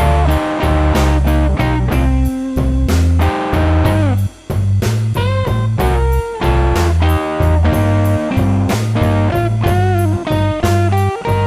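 Blues music with electric guitar over bass and drums, the guitar bending notes.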